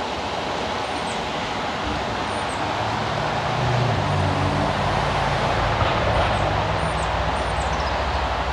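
Steady rushing of flowing water at a creek tailwater below a dam, with a low steady hum coming in about three seconds in and several short, high, falling bird chirps.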